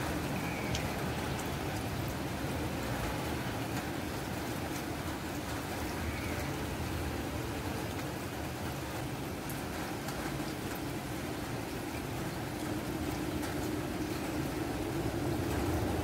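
Rain falling onto a shallow muddy pool: a steady wash of drops with faint scattered ticks of individual drops hitting the water.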